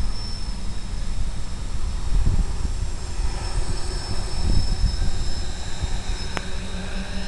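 Electric motors and propellers of an FPV multirotor drone running as it flies slowly just above the grass, heard from the craft itself: a steady rush of propeller wash with a faint high motor whine. A single sharp click about six seconds in.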